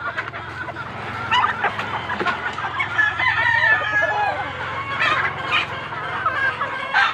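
A flock of chickens clucking and calling over one another, with one longer, drawn-out call, likely a rooster crowing, about three seconds in.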